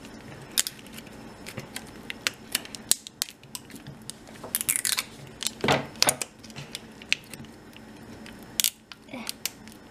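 Plastic wrapping of an LOL Surprise ball crinkling and tearing as it is peeled off by hand: irregular sharp crackles, with a few louder rustling bursts about halfway through.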